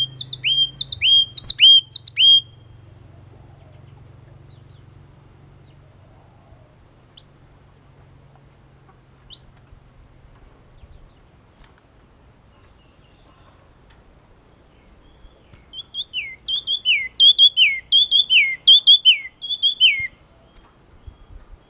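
Yellow-cheeked tit singing. The song opens with a run of repeated two-note phrases, each a high note and a lower downslurred one, about two a second. After a long pause with a couple of faint single notes, a second, faster run of repeated downslurred notes comes near the end.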